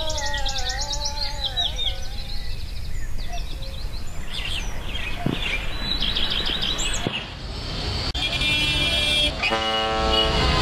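A chanted voice, the close of the Muslim call to prayer, trails off in the first second or two, and birds chirp and tweet over background hum. About eight seconds in, busy street or river noise rises and a horn blasts for about a second near the end.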